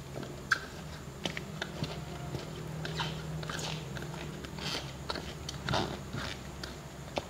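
Fresh sliced bamboo shoots crunching and crackling as a hand presses them down into a plastic jar, in irregular short clicks and crunches, over a steady low hum.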